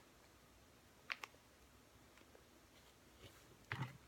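Near silence, with a faint click about a second in and a few small clicks near the end: a small plastic mix packet being handled while someone tries to open it.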